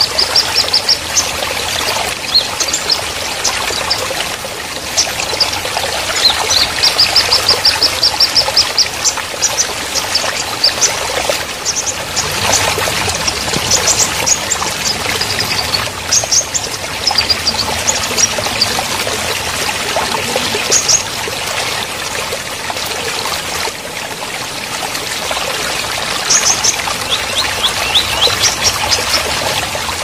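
Shallow stream rushing steadily over rocks, with small birds chirping on and off above it in quick, high runs of notes.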